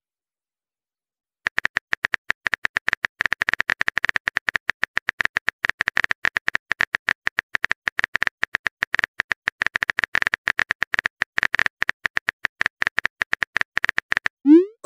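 Phone keyboard typing clicks: a rapid, uneven stream of taps as a text message is typed out, starting about a second and a half in. Near the end a short rising swoosh follows the last taps.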